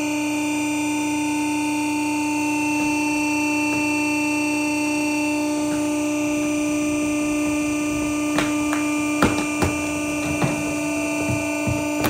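C&M down-packing cardboard baler running, its three-phase motor and hydraulic pump giving a steady hum and whine as the platen presses down on a load of cardboard. From about eight seconds in, sharp cracks and creaks of cardboard being crushed come through, and near the end a run of regular ticks, several a second.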